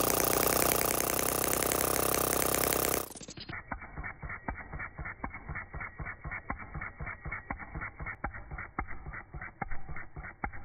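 Eachine ET5 miniature single-cylinder overhead-valve four-stroke petrol engine running. For the first three seconds it is loud, with fast continuous firing. Then the sound suddenly turns quieter and muffled, with separate exhaust pops about five or six a second.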